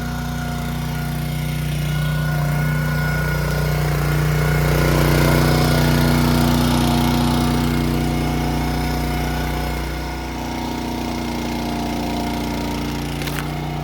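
A petrol or diesel engine running steadily. It swells louder about four seconds in and settles back down about nine seconds in.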